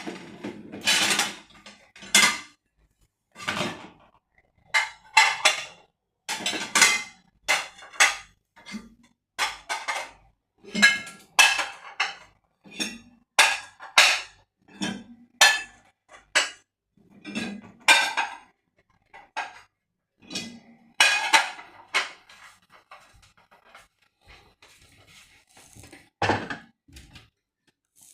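Dishes and cutlery clattering and clinking one after another as a dishwasher is unloaded, about one clink or clatter a second. A duller knock comes near the end.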